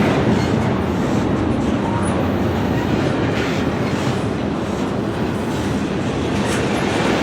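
Loaded freight cars of a long freight train rolling past slowly, with a steady rumble of steel wheels on the rails.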